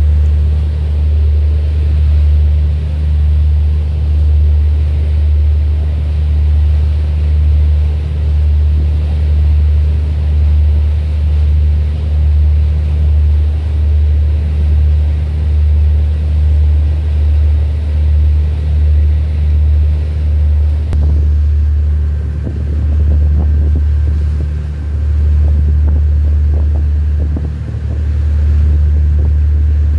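Boat engine running with a loud, steady low rumble that swells and fades about once a second. The sound shifts about two-thirds of the way through.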